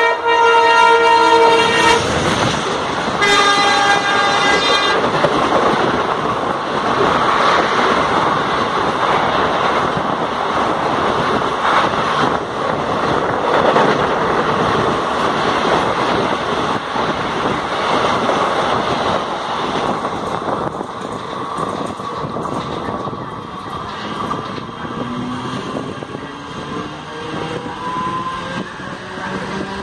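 Train horn blown twice: one blast already sounding at the start and stopping about two seconds in, a second from about three to five seconds, as an express train closes in on the next track. Its coaches then rush past close by with loud wheel-and-rail noise for about fifteen seconds, thinning out after that, and near the end a rising whine comes in as a train picks up speed.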